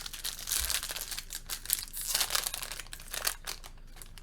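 Plastic snack wrapper crinkling and tearing as it is opened by hand: a dense run of crackles that dies down near the end.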